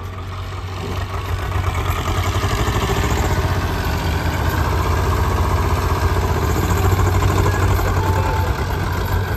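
Swaraj tractor's diesel engine revving hard, rising about a second in and then held at high revs, as the tractor strains against a loaded trolley stuck in loose sand and makes no headway.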